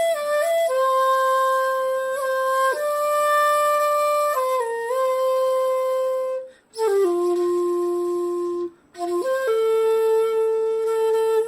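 Shakuhachi playing a slow melody of held notes without vibrato, each new note started with the tongue. The melody breaks off twice, briefly, a little past the middle.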